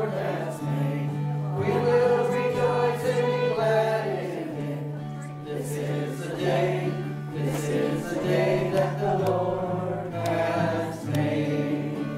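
Gospel hymn: a group of voices singing over instrumental accompaniment with held bass notes.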